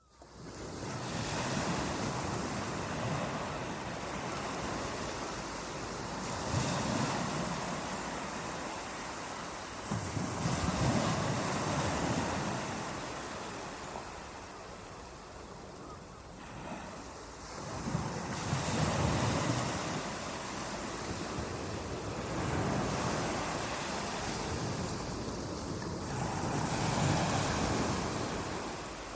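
Ocean surf, waves breaking and washing in slow swells every few seconds over a steady hiss of rain, fading in from silence at the start.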